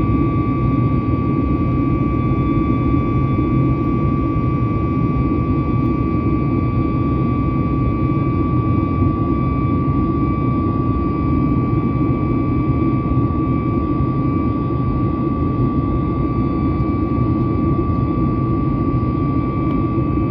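CFM LEAP-1B turbofan engines of a Boeing 737 MAX running steadily: a deep, even rumble with a steady high tone over it.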